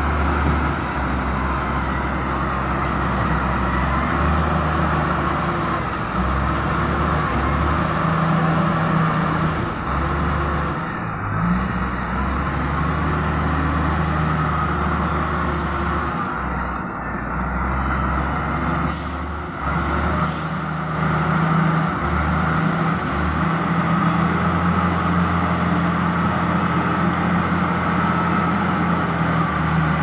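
Heavy diesel engine of a wheel loader running steadily under load, its low drone shifting a little in pitch and level as the machine works. A couple of brief knocks come about two-thirds of the way through.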